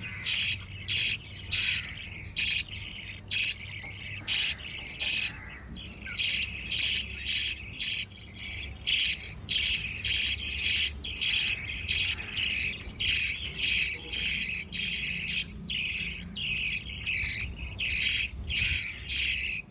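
Lovebird chicks giving high, buzzy begging chirps while being fed, repeated about twice a second with a brief lull partway through.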